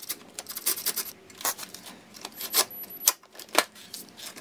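Socket ratchet clicking in irregular short runs of quick clicks and rasps, with a few louder clicks, as a bracket bolt over the car battery is tightened.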